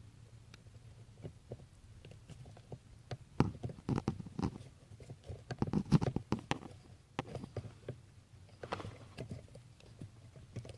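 Irregular clicks and knocks of small metal parts being handled as the clevis pin is fitted back through the clutch pedal, with a cluster of sharper knocks in the middle.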